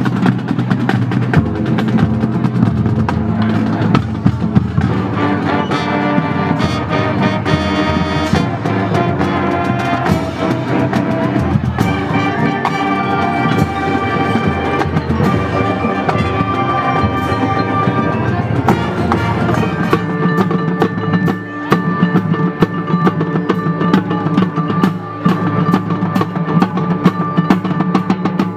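Marching band playing on the field: brass and woodwinds holding chords over snare, tenor and bass drums, cymbals and mallet percussion.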